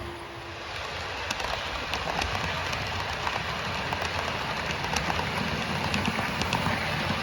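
OO gauge model train, a locomotive hauling Accurascale TransPennine Express Mk5 coaches, running along the layout's track. It makes a steady rolling rumble that grows louder about a second in, with the wheels ticking now and then over rail joints.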